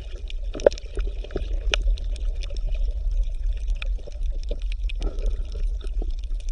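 Water bubbling and gurgling over a steady low rumble, with many small irregular clicks and pops.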